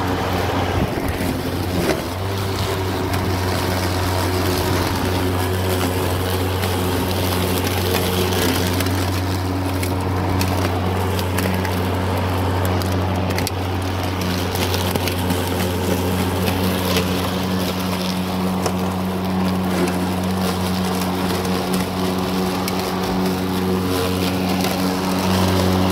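Makita 40V XGT cordless lawn mower running, its motor and spinning blade giving a steady hum as it is pushed through grass, cutting.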